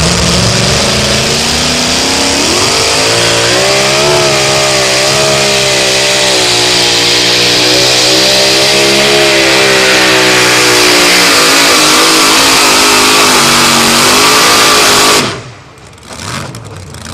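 Two-wheel-drive pulling truck's engine at full throttle pulling the sled: the engine note climbs over the first few seconds, holds high with a wavering pitch, sags a little, then falls away suddenly about fifteen seconds in as the pass ends.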